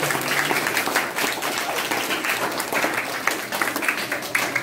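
Applause from a large crowd of schoolchildren: many quick claps running together, keeping up throughout.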